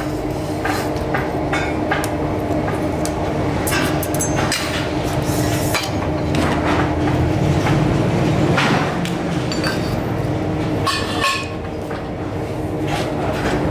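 Metal clinks and knocks from steel tube and fittings being set and shifted on a hand-operated pipe bender, irregular and scattered, over a steady low hum.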